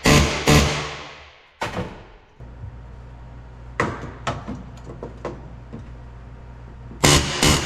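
Rivet gun hammering solid rivets into the truck cab's sheet-metal skin in short loud bursts: two at the start, one about 1.5 s in, and two more near the end, with lighter clinks between. A steady low hum sets in about two and a half seconds in.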